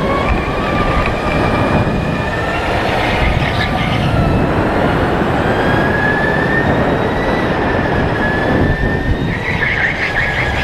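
Sodi RTX electric kart's motor whining, its pitch rising and falling with speed, over a steady rumble of tyres and chassis on the track surface, heard onboard. A sharper, higher squeal comes in near the end as the kart corners.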